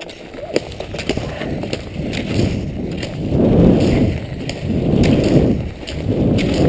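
Cross-country skis hissing and scraping over groomed snow as a dog pulls the skier off, with sharp clicks from the poles. The scraping swells and fades about once a second.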